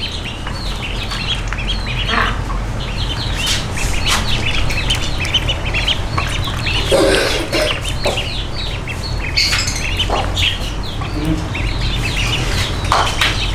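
Ducklings peeping over and over in short, high calls, with a few louder, lower calls breaking in now and then.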